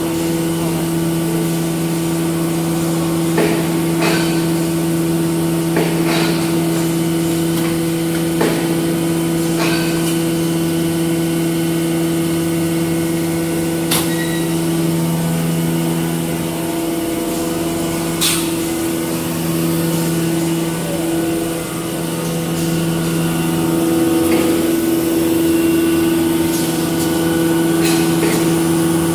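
Facial tissue folding machine and its production line running: a loud, steady mechanical hum with occasional sharp clicks and knocks.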